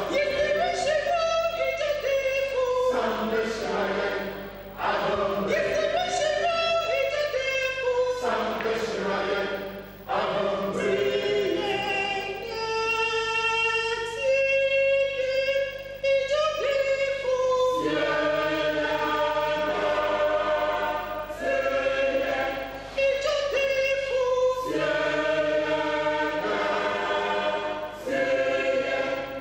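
A mixed church choir of men and women singing together in parts, in phrases separated by short breaths every few seconds.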